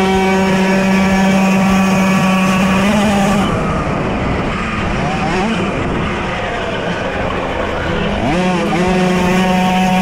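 Puch Maxi moped's small two-stroke engine running at high revs, its note held steady for about three and a half seconds. It then drops and wavers as the throttle comes off, and climbs back up about eight seconds in.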